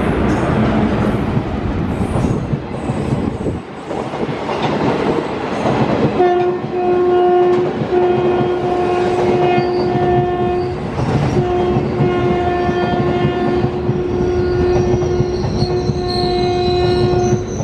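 WAP-4 electric locomotive's horn blowing in long blasts with short breaks, starting about six seconds in. Under it runs the rumble and rail clatter of the moving train.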